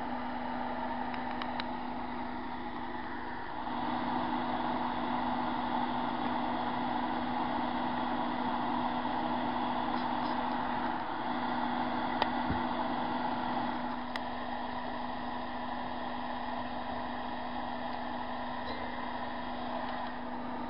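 Steady background hum with an even hiss and a low drone, a little louder from about three and a half to thirteen and a half seconds in, with a single sharp click about twelve seconds in.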